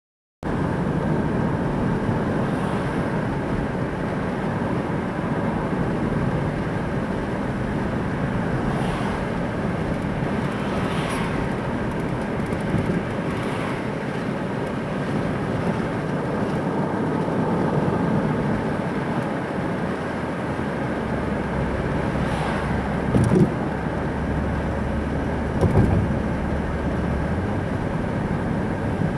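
A car running steadily, a low engine and road rumble with no speech, with two short thumps a few seconds apart near the end.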